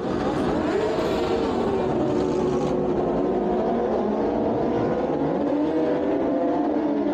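Several racing superbike engines revving as the bikes pull away down the start straight. Their pitches rise and fall and overlap one another.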